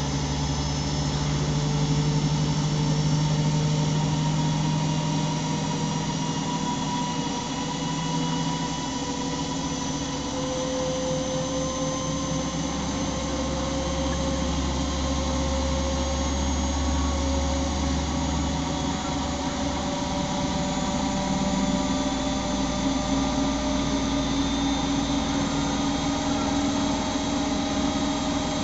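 Siemens Siwamat iQ 714 washing machine running, its motor whining with several steady tones that rise slowly in pitch as the drum speeds up, over a low hum.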